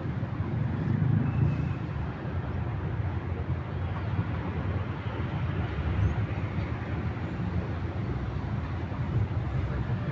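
Steady urban street ambience: a continuous low rumble of traffic, with a couple of faint short chirps.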